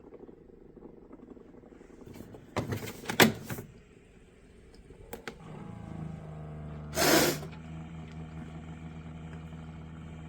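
Knocks and clatter of handling, then a drip coffee maker starts up with a steady low hum and a short loud hiss about seven seconds in.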